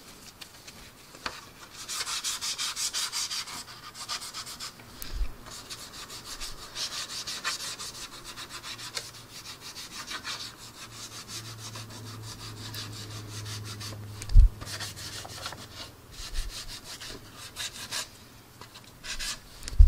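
Paper towel rubbed over the gloss-coated plastic of a scale model aircraft, wiping off dried panel-line wash in repeated strokes. A single sharp thump about fourteen seconds in.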